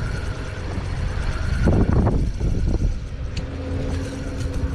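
A boat motor's low steady rumble, with a steady hum joining about three quarters of the way through.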